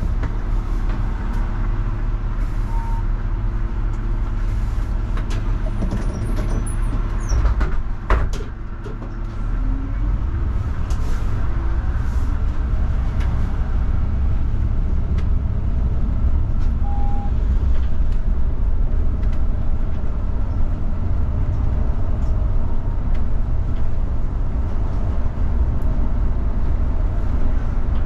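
Mercedes-Benz Citaro CNG city bus with its natural-gas engine running. There is a steady hum at first, then a sharp click about eight seconds in and a brief drop in level. After that the engine and road noise build steadily as the bus pulls away and drives on.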